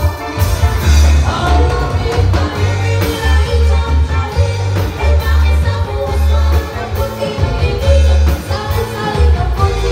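Live band playing through a PA: women singing into microphones over keyboard, electric guitar, drums and a heavy bass beat.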